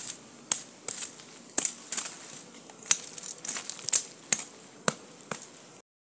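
Dry leaves and a stick crackling and crunching as a hand works at them on the ground, in sharp strokes about twice a second. The sound cuts off suddenly near the end.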